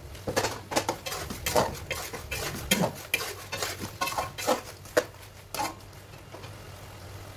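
Metal slotted spatula scraping and knocking against the inside of a large aluminium karahi as mutton in thick gravy is stirred, in irregular strokes about twice a second. The strokes thin out near the end.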